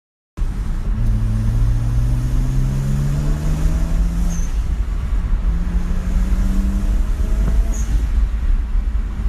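BMW N54 twin-turbo straight-six car accelerating hard through two gears, over a heavy low rumble. Its engine note rises, drops at a shift about four seconds in, then rises again. A short high chirp comes at the end of each pull.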